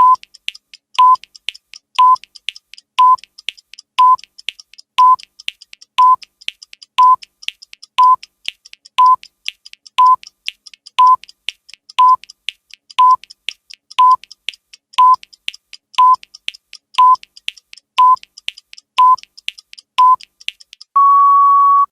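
Countdown timer beep sound effect: a short electronic beep once a second, with faint clicks between, ending near the end in one longer, slightly higher steady beep as the count reaches zero.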